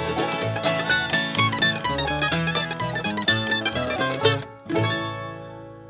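A string band plays the closing instrumental bars of a song: fast plucked notes over a bass line, then a short break and a final chord about five seconds in that rings and fades out.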